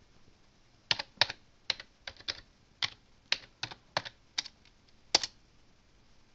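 Typing on a computer keyboard: about a dozen separate keystrokes at an uneven pace over roughly four seconds, starting about a second in. A file name is typed and entered with the last key.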